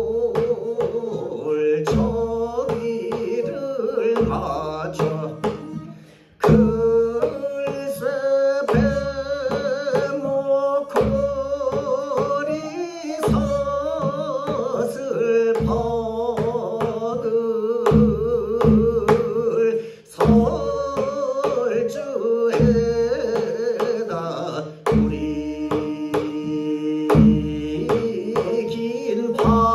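A man singing sijo in long held notes that waver in pitch, accompanied by a daegeum (Korean bamboo transverse flute) and regular janggu (hourglass drum) strokes.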